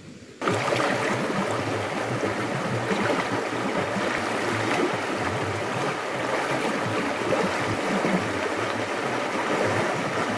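Shallow, rocky mountain stream rushing and gurgling over stones, a steady loud water noise that starts abruptly about half a second in.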